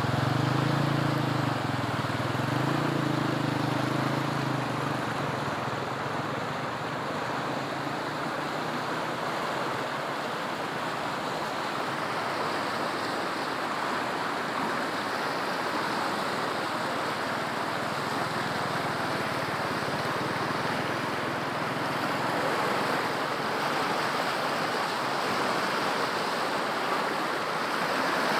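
Muddy floodwater rushing and churning over a bank in a steady, continuous flow.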